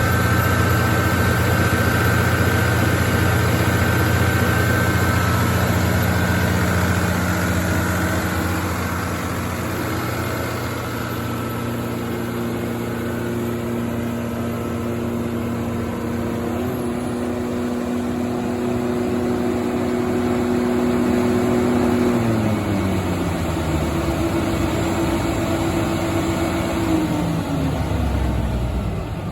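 140 kW Baldor diesel generator set running steadily. About two-thirds of the way through, its pitch falls steadily over several seconds as the engine slows and winds down.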